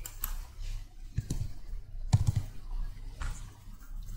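A few separate computer keyboard keystrokes and mouse clicks, the loudest about two seconds in, over a low steady hum.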